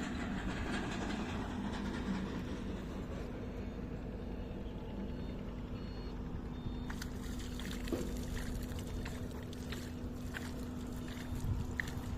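A steady low engine hum with one held tone, with scattered faint clicks over it in the second half.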